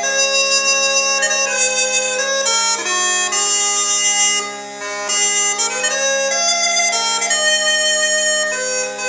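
Northumbrian smallpipes playing a slow air: a melody of held notes with small slides between them over steady, unchanging drones.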